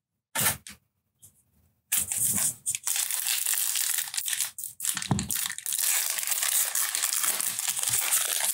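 Foil wrapper of a 2018 Stadium Club baseball card pack being torn open and crinkled by hand. A brief rustle comes first, then about two seconds in a continuous crackling and tearing sets in.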